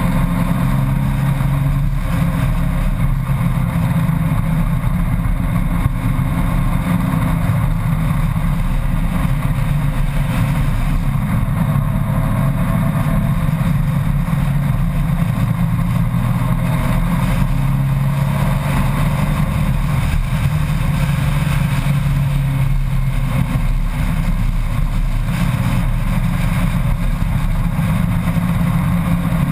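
Honda Gold Wing motorcycle engine running steadily at road speed through mountain curves, its pitch drifting a little, with wind rushing over the bike-mounted microphone.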